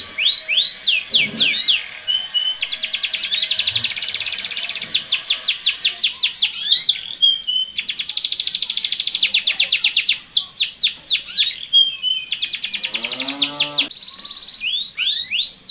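Domestic canaries singing a breeding song, with long, very fast rolling trills and runs of rapid sweeping chirps that break off and start again every few seconds. A short, lower-pitched buzzy sound comes in about thirteen seconds in.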